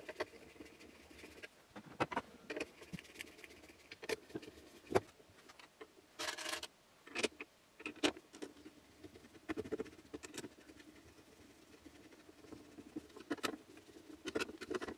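Scattered light clicks and knocks of 3D-printed plastic frame parts and screws being handled and set down on a wooden board, with a short rustle about six seconds in.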